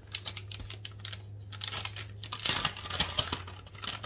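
Plastic packaging of shredded sharp cheddar cheese crinkling as it is handled, a quick run of small crackles that is busiest about halfway through.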